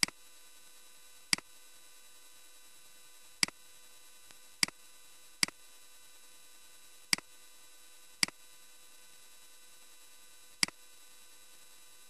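Computer mouse clicking: eight sharp single clicks at uneven intervals, over a faint steady electronic hum.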